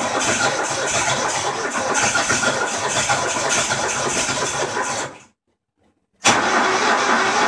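Small engine of a zero-turn riding mower running steadily in the cold. Just after five seconds in, the sound cuts out completely for about a second, then returns suddenly at the same level.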